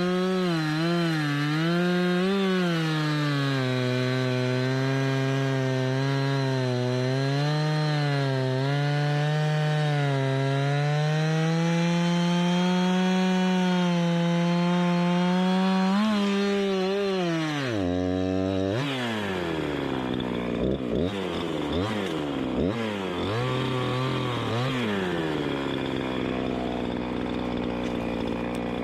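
Two-stroke chainsaw cutting through wood, its engine note sagging and recovering under load. About 17 seconds in it comes out of the cut, is revved in several quick blips, and then settles to a steady idle.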